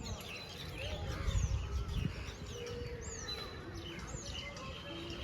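Several birds chirping, with short arching calls repeating about once a second, over a low rumble.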